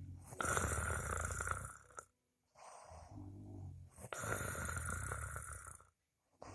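A sleeping person snoring. There are two full cycles, each a lower rumbling stretch that turns into a louder, noisier snore, with a short silent gap after each, and a third cycle starts near the end.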